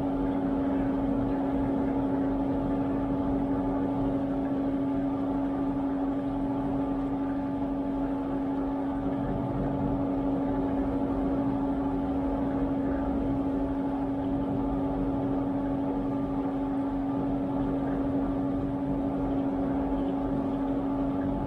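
Washtech UL Premium commercial undercounter dishwasher partway through a light wash cycle: its wash pump running with a steady, unchanging hum.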